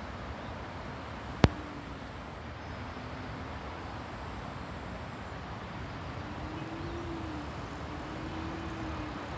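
Steady low rumble of distant road traffic, with faint hums that swell and fade every second or two. One sharp click about a second and a half in.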